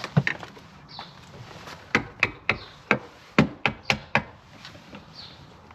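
A quick series of about nine sharp knocks as a piece of plastic bumper trim on a van is worked loose.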